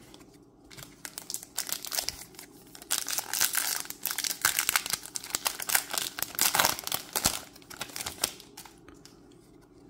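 Crinkling and crumpling of a plastic foil booster-pack wrapper as it is handled: a dense run of crackles that starts about a second in, is loudest in the middle and stops about a second before the end.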